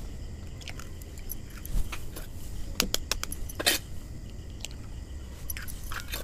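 Eggs being cracked against a bowl and their shells broken apart by hand: scattered short, sharp clicks and taps, the loudest about three and a half seconds in.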